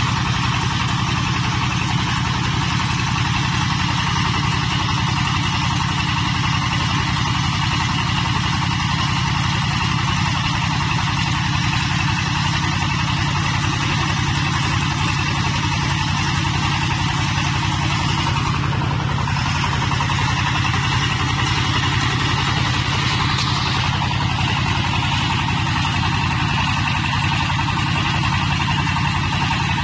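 The 22 HP diesel engine of a portable hydraulic water-well drilling rig running steadily while the rig drills. It drives the hydraulic motor and mud pump.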